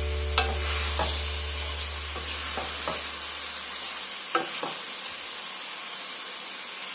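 Mushrooms, eggplant and cabbage sizzling in a stainless steel pot as they are stirred with a wooden spatula, with several sharp clacks of the spatula against the pot.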